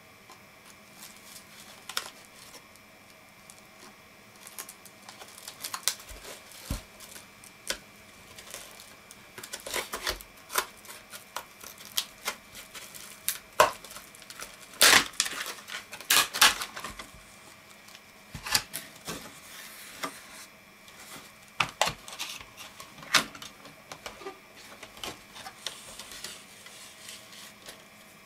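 Stiff clear plastic clamshell packaging being cut with a small blade and pried apart: irregular clicks, snaps and crackles of the plastic, busiest and loudest about halfway through.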